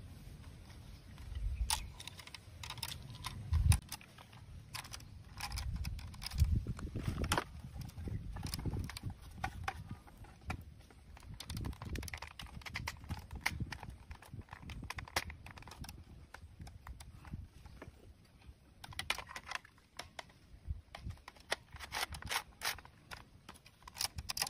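Plastic toy sniper rifle being handled and put together: irregular clicks, taps and rattles of hard plastic parts, with a few dull thuds.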